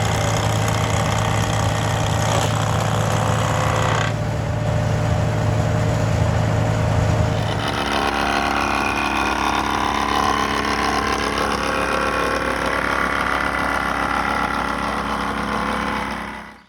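A 1948 Farmall H tractor's four-cylinder engine running steadily, driving an antique straight-knife planer by a flat belt. The sound changes about eight seconds in, when the deep hum drops away.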